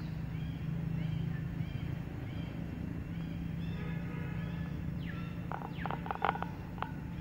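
Outdoor ambience: short high chirps repeating over a steady low hum, with a few quick falling sweeps and then a cluster of sharp clicks and taps in the last two seconds.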